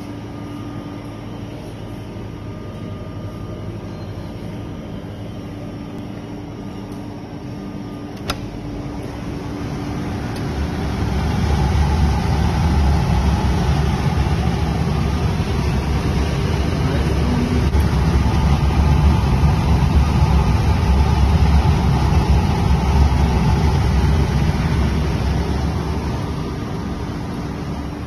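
A vehicle engine running with a low rumble that swells about ten seconds in and eases off near the end, with a single sharp click about eight seconds in.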